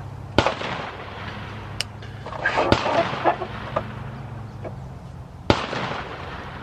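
Three rifle shots from a PSA JAKL, about two and a half seconds apart, each trailing off in a short echo.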